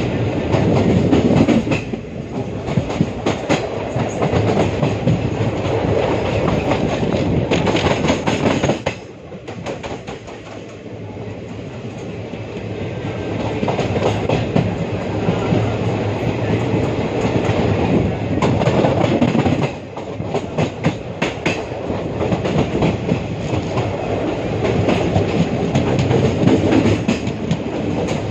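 A moving passenger train heard from its open coach doorway: the wheels clatter over the rail joints amid the steady rush of the run. The sound drops for a few seconds about nine seconds in, then builds again.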